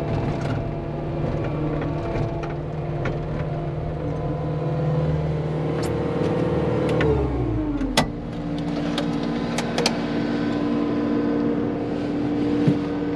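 Cat 259D skid steer's diesel engine running steadily, then throttling down to a lower, slower idle about seven seconds in. A few sharp knocks are heard along the way.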